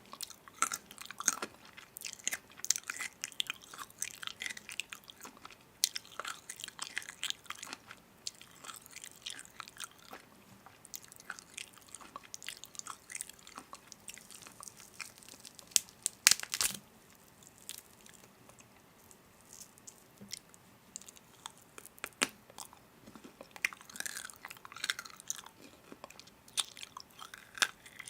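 A person chewing crunchy food, with irregular crunches and clicking bites, the loudest cluster a little past the middle.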